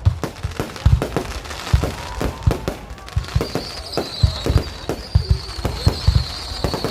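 Fireworks going off in an irregular barrage of bangs and booms, several a second. A high steady whistle joins about three seconds in.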